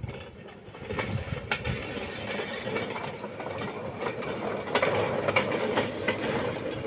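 A small hand-pushed narrow-gauge flat wagon's metal wheels rolling along light steel rails, rattling with irregular sharp clicks. The sound grows louder as the wagon approaches.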